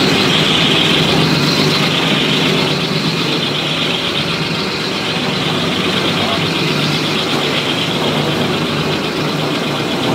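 Concrete Genie walk-behind floor grinder running steadily, its counter-rotating tooling heads grinding glue and mastic off a concrete floor. A constant low drone with a hiss above it.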